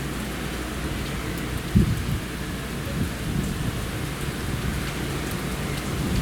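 Heavy rain falling steadily as a rain front passes. A few short low thumps break through, the loudest about two seconds in.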